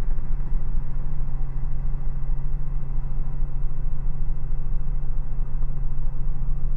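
Robinson R44 helicopter in cruise flight, heard from inside the cabin: the steady drone of its six-cylinder Lycoming piston engine and rotors.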